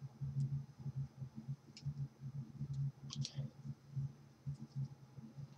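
A few light clicks of hairpins and a hair clip being worked into hair, with one cluster of clicks a little past three seconds in, over a low pulsing hum.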